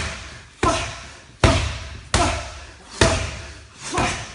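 Boxing gloves striking focus mitts in a steady series of sharp slaps, about one every 0.7 seconds, as the boxer punches up from sit-ups on the mat. Each slap echoes briefly.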